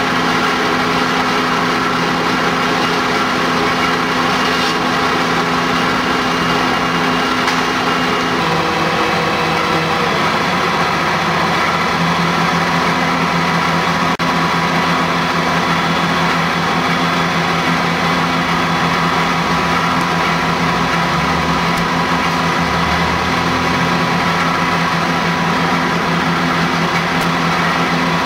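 Fire engines' engines running steadily at the scene, a constant mechanical drone; the engine note shifts about eight seconds in.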